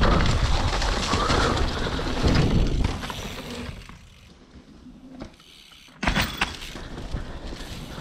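Mountain bike riding down a rough dirt trail: tyre rumble, drivetrain and frame rattle, and wind on the microphone. About halfway through the noise fades to a quiet stretch of around two seconds, then comes back suddenly with a sharp clatter about six seconds in.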